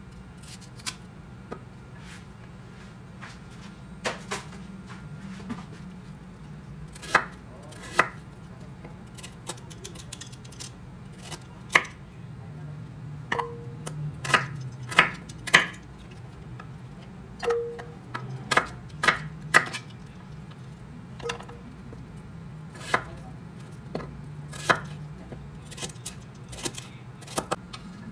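Knife knocking on a cutting board during food preparation: scattered, irregular sharp knocks a second or more apart, some ringing briefly, over a low steady hum.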